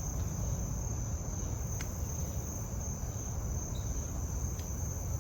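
Insects trilling in a steady, unbroken high-pitched chorus over a low rumble, with a faint tick about two seconds in.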